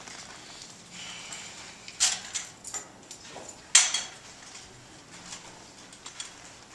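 Clicks and knocks of camera gear being handled, with two sharper clacks about two seconds and nearly four seconds in.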